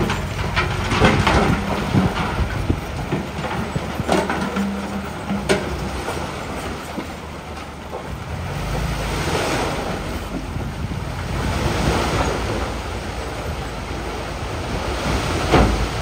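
Heavy earthmoving machinery at work on stone: a steady low engine rumble with several sharp knocks and clanks, one of them near the end.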